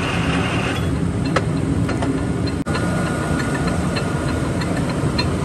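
Large Poreba gap-bed engine lathe running, its spindle drive and gearing giving a steady mechanical hum with faint ticks. There is a brief dropout just past halfway, and a steady whine follows it.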